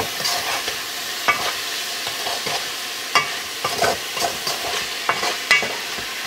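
Wooden spoon stirring and scraping diced onion, celery and green pepper with a turkey neck around an aluminum pot, in irregular strokes over a steady sizzle as the vegetables sweat in the hot pot.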